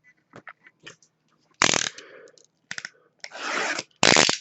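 Packaging of a sealed hockey-card hobby box being handled and torn open: small clicks and taps, with short sharp tearing and crinkling rasps, the loudest about a second and a half in and again near the end.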